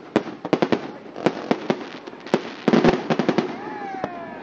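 Fireworks display: a rapid, irregular series of sharp bangs from bursting aerial shells, with a dense loud cluster past the middle and a falling pitched tone near the end.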